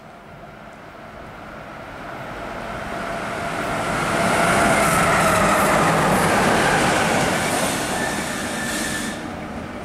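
A light-engine move of three coupled electric locomotives, led by a Siemens Vectron, passing by on the rails. The rolling noise, with a steady whining tone in it, swells to its loudest about halfway through and then fades as they go by.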